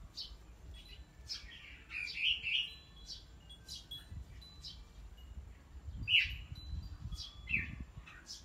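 Red-whiskered bulbuls calling with short chirpy whistled phrases, a run of notes about two seconds in and more single calls near the end.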